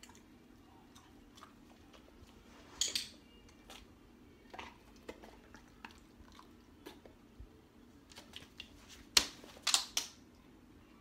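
A dog chewing a treat, with small wet mouth clicks and crunches. A few louder sharp clicks and rustles come about three seconds in and again near the end.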